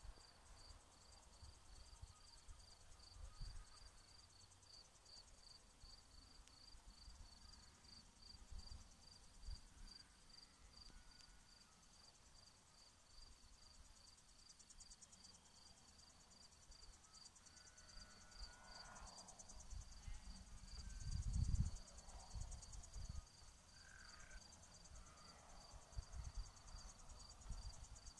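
A cricket chirping in a steady run of evenly spaced, high chirps, with low rumbles on the microphone, loudest about three-quarters of the way through.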